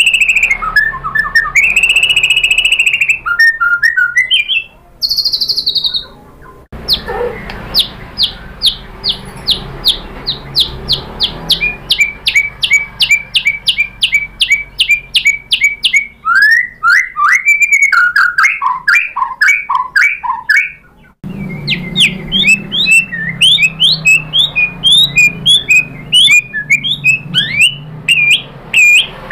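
White-rumped shama singing loudly in full, agitated song. It gives clear whistled phrases, long runs of one short note repeated several times a second, and quick rising and falling trills, and the song breaks off sharply twice.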